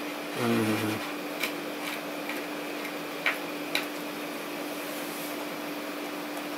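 A few light, sharp clicks and taps from a small screwdriver working on the NVMe dock's enclosure, over a steady faint hum.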